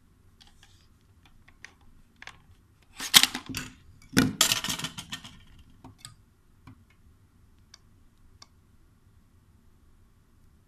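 Handling noise from a plastic phone VR headset: scattered clicks, then two loud rattling clatters about three and four seconds in as the phone is pulled out of the headset.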